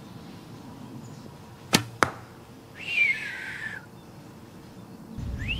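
A 55-pound Bear Grizzly recurve bow shot: a sharp pop as the string is released, then the arrow striking a bag target about a third of a second later. About a second after, a short high whine falling in pitch.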